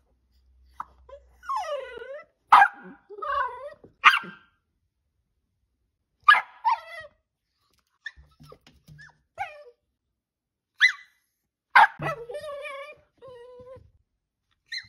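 A dachshund barking and whining in several bursts: sharp high barks mixed with drawn-out whines that bend in pitch, with short gaps between bursts.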